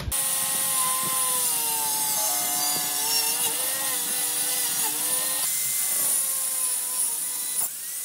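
Corded angle grinder running and cutting a slot into a plywood panel. Its steady high whine dips briefly in pitch a few times as the disc bites into the wood.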